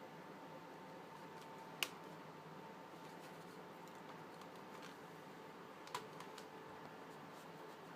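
Quiet room tone broken by two short, sharp clicks, one about two seconds in and one about six seconds in.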